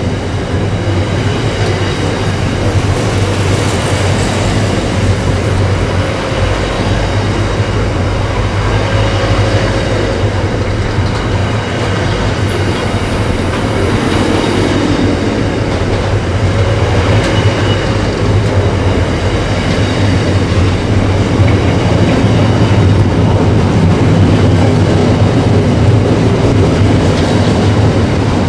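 Container freight wagons rolling steadily past at close range: a continuous rumble of steel wheels on the rails, with faint high-pitched wheel squeal coming and going.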